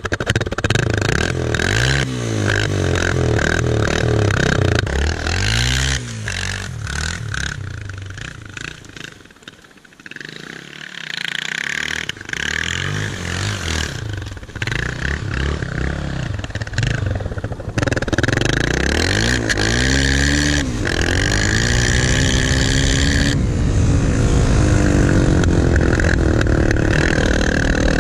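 Yamaha Serow's single-cylinder four-stroke engine revving through a homemade tin-can extension taped over the muffler outlet, rising and falling in pitch again and again. It fades briefly about ten seconds in, then comes back and runs loud at high revs for the last third.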